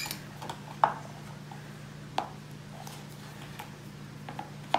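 A few light, scattered taps and clinks of a kitchen utensil against a plastic mixing bowl and plate while condensed milk is scraped in, over a steady low hum.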